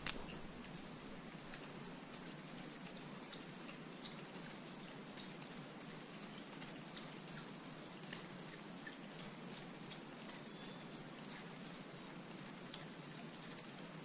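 Faint outdoor ambience: a steady high-pitched hum with scattered soft ticks, one a little louder about eight seconds in.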